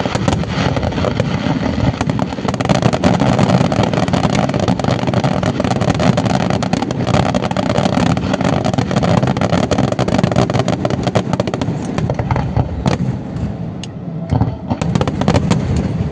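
Fireworks going off in a dense, continuous barrage of bangs and crackling, thinning briefly near the end before more bursts.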